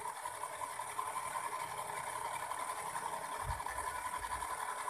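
Small electric motors and both rotors of an RC model Chinook helicopter running at speed, giving a steady whine with a buzzing edge and a hiss of air. A brief low rumble comes a little past three seconds in.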